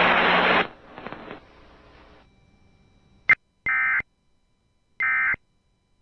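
Emergency Alert System end-of-message data bursts: after a loud rush of noise cuts off in the first second and a click, two short, identical buzzing digital tone bursts sound about 1.3 s apart.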